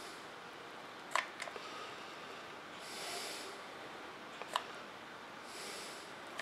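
Quiet bench work: two sharp small clicks, about a second in and again near four and a half seconds, from handling a hot glue gun and a small metal spring, with soft breaths through the nose every few seconds.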